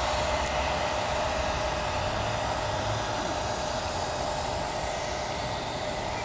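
Engine noise from a departing aircraft: a steady rushing sound that slowly fades as the aircraft moves away.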